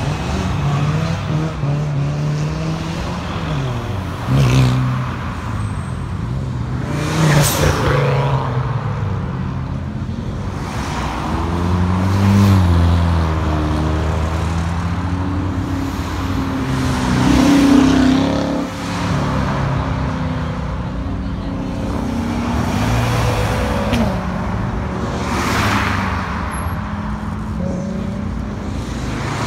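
Cars driving past one after another, their engines accelerating and changing pitch as they go by, with several louder passes through the stretch.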